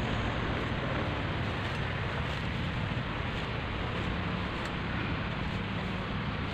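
Steady rushing noise, wind on the microphone, with a few faint swishing strokes as a hand sickle cuts tall grass.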